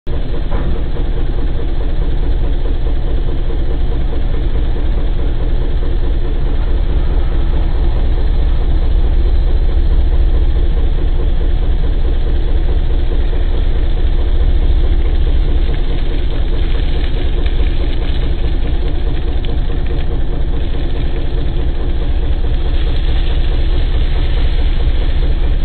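JCB 8018 mini excavator's diesel engine running steadily at working speed, heard from the operator's seat, while the boom and bucket dig gravel.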